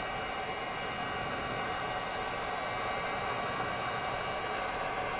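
Handheld heat gun running steadily on its low setting: a steady rush of blown air with a thin motor whine over it, drying a fresh coat of acrylic shoe paint.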